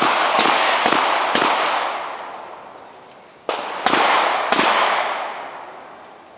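Handgun shots from several shooters on a firing line: four shots about half a second apart, then after a two-second pause three more, each with a long echoing tail.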